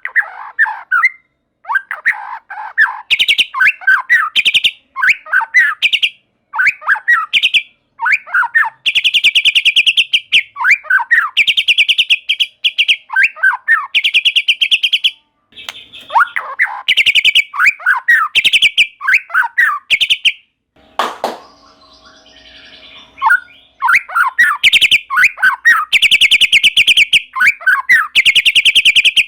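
White-rumped shama (murai batu) singing loudly and without let-up: varied falling whistled phrases alternate with long, very rapid rattling trills. The song breaks off briefly a little past two-thirds of the way through.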